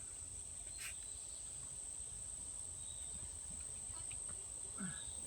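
Steady high-pitched insect chirring, as from crickets in the woods, with a single faint click about a second in.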